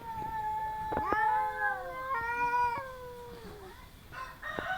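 Cats yowling at each other in a territorial standoff: several long, wavering, drawn-out yowls, one sliding down in pitch about halfway through, with another starting near the end.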